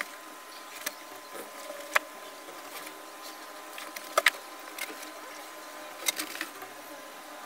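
Scattered sharp taps and clicks as a long metal rule is handled and shifted into place on a sheet of foam, over a faint steady high hum. A quick double tap about four seconds in is the loudest.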